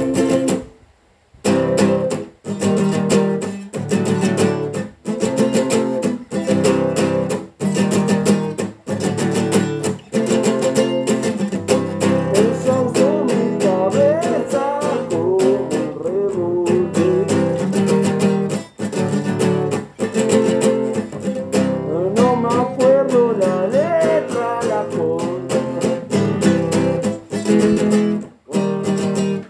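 Acoustic guitar strummed in a steady chord rhythm, stopping briefly about a second in. A voice sings along over the chords in places.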